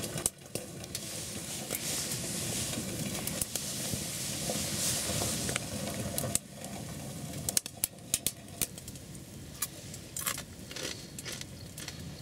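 Small wood-burning tent stove heating camping pots of water: a steady hiss for about the first six seconds. Then it goes quieter, with scattered crackles and clicks.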